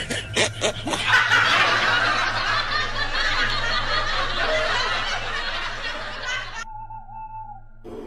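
Laughter: short laughing pulses at first, then a dense, continuous spell of laughing that breaks off about two-thirds of the way through. A brief steady tone follows near the end.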